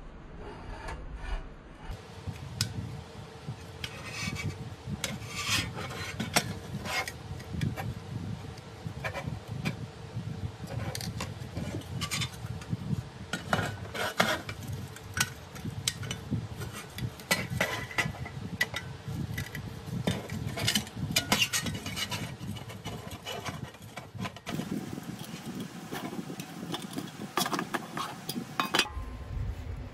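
A flat-blade screwdriver scraping and prying at the rusty pressed-steel body of a 1950s Tonka dump truck, with many short metal scrapes and clicks as the cab and frame are worked apart and handled on a hard tabletop.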